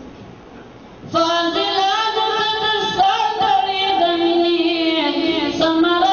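About a second in, a single high voice starts singing a religious chant (nasheed), holding long notes that bend and glide in pitch. Before it there is only low hall murmur.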